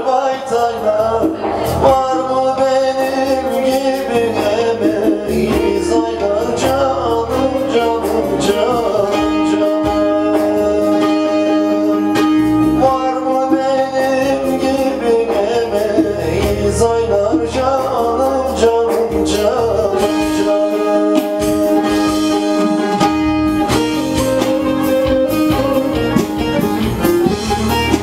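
A man singing with plucked-string accompaniment, drawing out long held notes twice, in the middle and later on.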